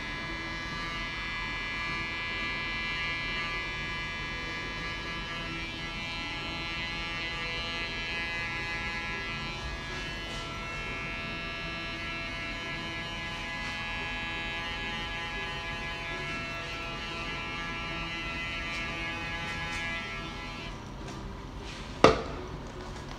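Cordless electric hair clipper running with a steady buzz, stopping about 21 seconds in. A single sharp knock follows a second later.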